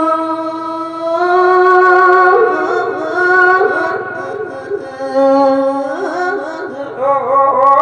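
Music with long, steady held notes and a melody that bends up and down over them, growing busier about five seconds in.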